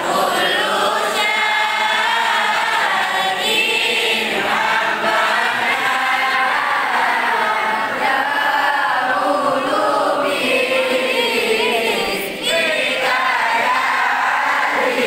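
A large group of girls singing sholawat, Islamic devotional praise, together in unison, with a brief break for breath about twelve seconds in.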